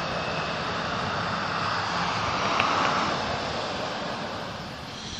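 Amtrak Capitol Corridor bilevel passenger train rolling away on the rails: a steady rumble of wheels on track that fades over the last couple of seconds. A short high squeak comes about two and a half seconds in.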